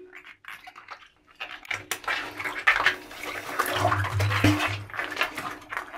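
Wet, water-filled rubber balloons being handled and pressed against the bottom of a bathtub, giving uneven rubbing, squelching and light splashing noises with small knocks, starting about a second and a half in.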